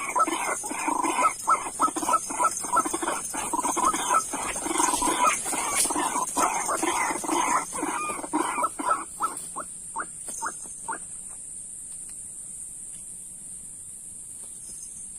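A bird giving rapid, repeated harsh calls, several a second, which thin out and stop about eleven seconds in. A steady high-pitched insect drone runs underneath.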